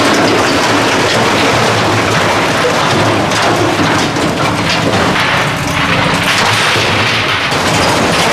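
Concrete and steel rubble pouring and crashing down as a long-reach demolition excavator's jaws break apart a building's structure: a loud, continuous clatter of falling debris with many sharp crashes.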